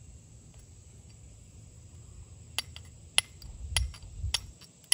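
Flint-and-steel striking: a carbon-steel striker made from a Nicholson file struck down a piece of Georgetown chert, giving about five sharp clicks roughly every half second from a couple of seconds in, to throw sparks onto charred punk wood.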